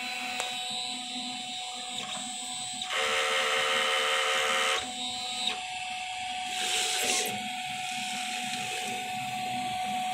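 DTF printer running a nozzle check: a steady motor whine with the printhead carriage and film feed moving, growing louder for about two seconds from roughly three seconds in and again briefly near seven seconds.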